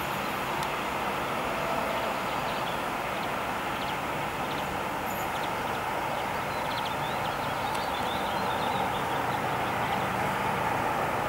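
Electric locomotive-hauled push-pull passenger train approaching on the line, a steady rumble of wheels on rails that grows slightly louder near the end.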